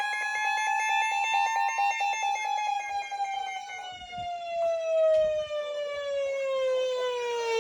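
Emergency alert tone in a siren-like sound: one loud tone with many overtones. It holds near steady with a fast pulsing for about two seconds, then slides slowly down in pitch.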